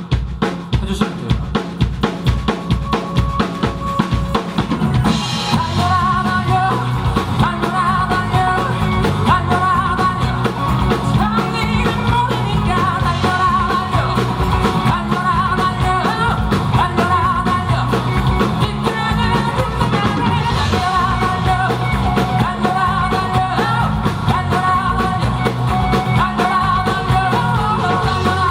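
Live rock band music: a drum kit plays a driving beat of bass drum and snare, and about five seconds in the rest of the band comes in at full volume, with melody lines over it.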